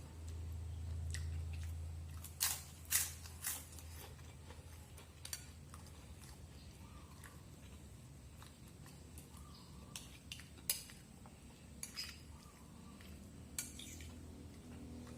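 Irregular light clicks and clinks, the sharpest coming in a cluster about two and a half to three and a half seconds in and again around ten to fourteen seconds, over a low steady hum.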